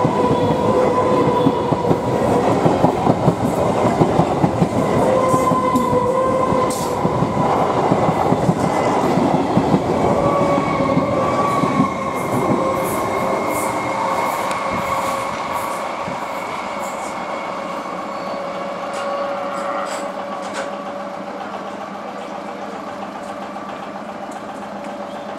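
Indian Railways EMU suburban train passing close on its rails: wheels rumbling and clattering, with a steady high whine over it. About halfway through the noise drops to a quieter, steady train running with the whine still there.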